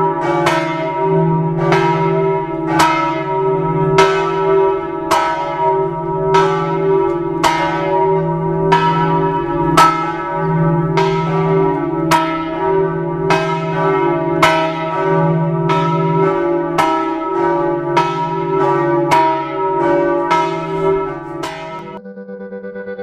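Church bells of the Campanile di San Marco ringing, struck about one and a half to two times a second over a steady hum; the strikes stop near the end.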